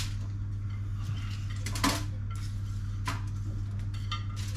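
A kitchen knife clinking and scraping against a ceramic plate as chopped onions are pushed off it, a few separate clinks, the clearest about two seconds in, over a steady low hum.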